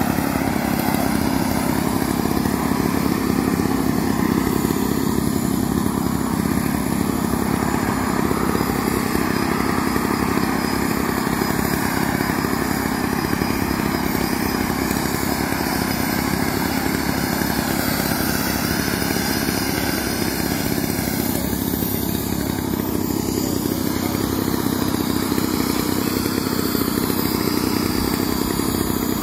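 Gas engine of a large radio-controlled propeller model airplane running steadily on the ground before takeoff.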